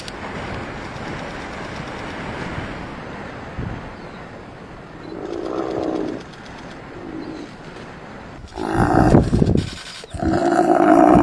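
Animal calls: a short low call about five seconds in, then a loud burst, and near the end a loud, long, low call.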